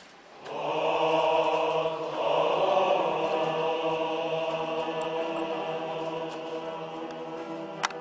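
A large male choir of about a hundred voices comes in about half a second in on a loud chord and holds it, slowly fading. A sharp click sounds near the end.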